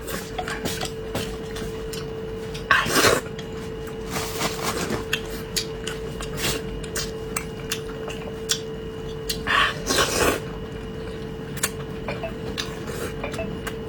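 Chopsticks and a bowl clinking in short, scattered clicks while eating noodles, with two louder noisy bursts, about three seconds in and again near ten seconds. A steady faint hum runs underneath.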